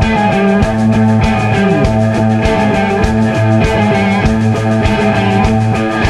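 Blues-rock band recording playing: electric guitar over bass guitar and steady drums.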